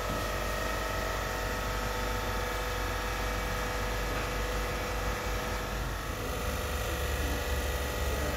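Ice rink refrigeration plant machinery, its pumps and motors, running steadily: a constant machine noise with several steady tones over it.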